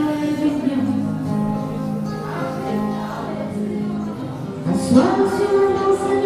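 Live band playing a song: singing in long held notes over acoustic guitar, the voice sliding up into a higher held note about five seconds in.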